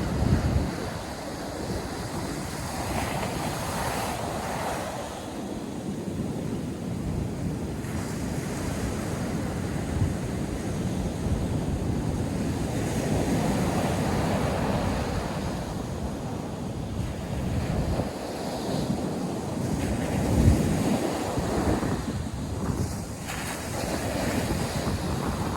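Sea surf breaking on a sandy beach, waves swelling and washing in and out, with wind buffeting the microphone in low gusts.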